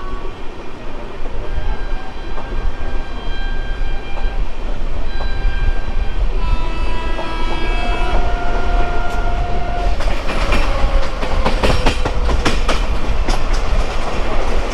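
Express passenger train pulling away from a station and gathering speed: a steady low rumble of the wheels on the rails, growing a little louder over the first seconds. Long horn tones sound at times, and from about ten seconds in come rapid clicks of the wheels over rail joints.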